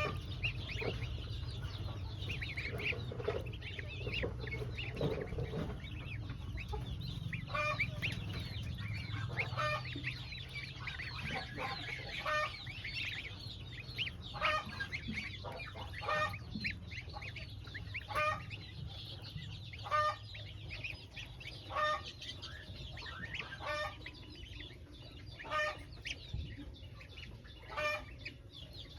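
A flock of farmyard poultry calling: many short chirps and clucks. From about a quarter of the way in, a repeated pitched call sounds about every two seconds. Under it runs a low steady rumble.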